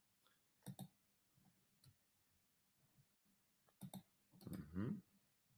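Mostly near silence with a few faint clicks at a computer, the clearest near the start and about four seconds in, and a short sound that slides in pitch about four and a half seconds in.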